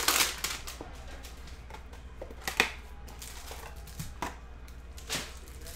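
Cardboard Panini Prestige football hanger box being torn open by hand and its cards handled: a tearing rustle right at the start, then a few short sharp rustles and clicks.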